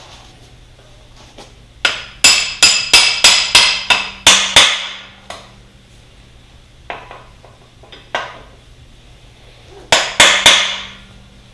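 Hammer blows on a brass punch, driving a bolt out of a dirt bike's chassis, metal ringing on metal. A quick run of about nine strikes, two lighter knocks a few seconds later, then three more strikes near the end.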